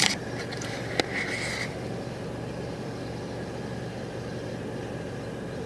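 Steady low hum of a car, heard from inside, with a sharp click at the start and another about a second in, and a brief hiss that fades out before two seconds.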